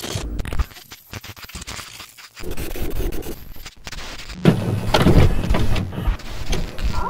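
Glitch and TV-static sound effects: crackling noise that stutters and cuts in and out, then a louder burst about four and a half seconds in.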